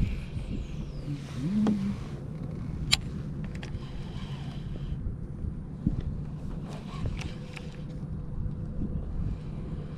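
A steady low rumble with a few short, sharp clicks from a baitcasting reel being handled.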